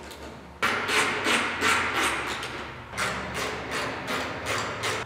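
Sharp metallic clicks and knocks, two or three a second, from hand work on the hinge bolts while a car hood is being fitted.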